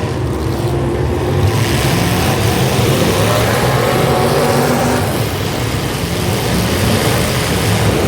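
Demolition derby cars' engines running and revving together, a loud steady din with engine notes that rise and fall.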